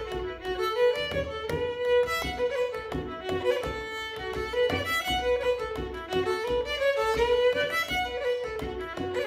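Fiddle playing a reel at medium tempo, with a bodhrán frame drum beating a steady rhythm of low thumps underneath.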